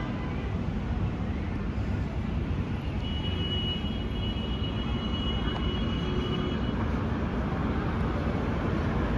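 Steady low rumble of a CRRC Changchun low-floor light-rail tram standing at the platform, with a steady high-pitched whine for about four seconds starting a few seconds in.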